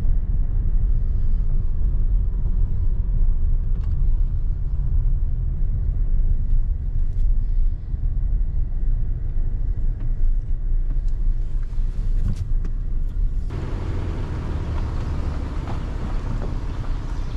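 Car driving on the road, a steady low rumble of engine and tyres. About three-quarters of the way through, a louder hiss joins the rumble and stays.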